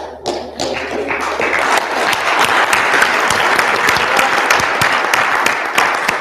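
Audience applauding: many hands clapping, building over the first couple of seconds, holding steady, then dying away near the end.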